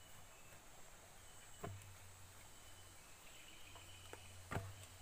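Near-quiet outdoor background with a faint steady high hiss and a low hum, broken by two short knocks, one a little under two seconds in and one near the end.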